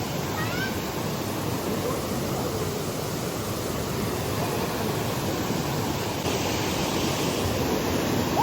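Steady rush of water from a small forest waterfall and stream, an even hiss of falling water; it grows a little brighter and louder about six seconds in.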